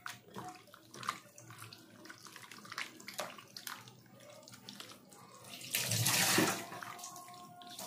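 Wet squelching and squishing of a bare hand kneading bone-in chicken pieces into a thick, wet yogurt-and-herb marinade in a glass bowl, in short irregular squishes with one louder, longer squelch about six seconds in.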